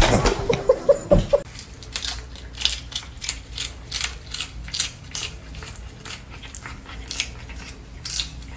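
A cat crunching a crisp lettuce leaf held out by hand: short crackly bites about three a second. A louder sound with a few short squeaky notes fills the first second or so.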